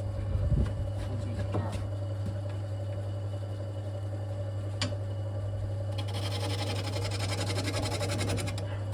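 Wood lathe running at slow speed with a steady motor hum. About six seconds in, a turning tool starts cutting the spinning, still out-of-round wooden blank with a fast rattling scrape.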